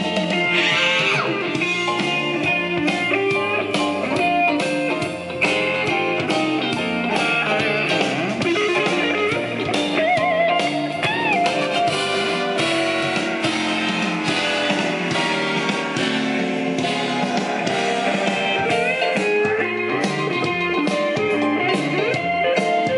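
Instrumental break of a Mandarin pop song, played back over a stereo system's bookshelf loudspeakers driven by a Luxman CL-350 preamplifier and MC7270 power amplifier. A lead line with gliding, wavering pitches runs over the band.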